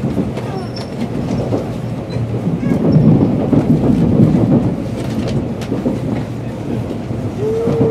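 N700-series Shinkansen train rolling toward the platform at Shin-Ōsaka, heard from inside the passenger car: a steady low rumble with faint clicks of the wheels over rail joints and points. Near the end a single steady tone begins.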